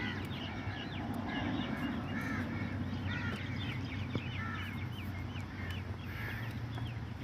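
Birds calling over and over, with quick high chirps in between, over a steady low hum.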